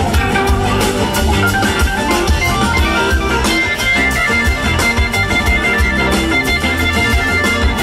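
Live blues-rock band playing: organ and electric guitar over bass and a steady drum beat, heard from among the crowd.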